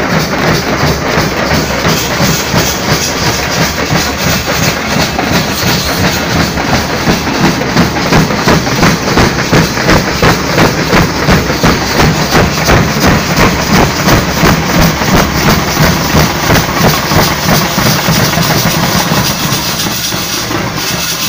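Nasik dhol band playing: many dhol drums beaten together in a loud, fast, driving rhythm with about three strong beats a second, easing slightly near the end.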